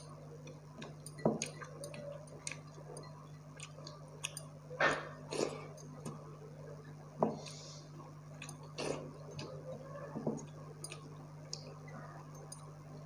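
A person chewing mouthfuls of rice and fried food close to a clip-on microphone, with many small sharp mouth clicks and a handful of louder ones spread through.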